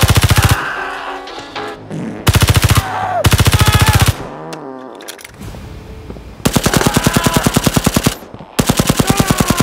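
Five bursts of rapid automatic gunfire, the longest lasting about a second and a half, over background music.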